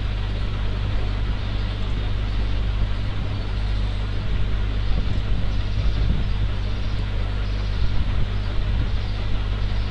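Steady low electrical hum with an even hiss: the background noise of the narrator's recording microphone between spoken steps.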